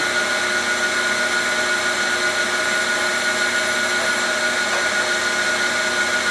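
Cylindrical grinder running steadily: a constant hiss with a few steady whining tones from the spinning grinding wheel and its spindle.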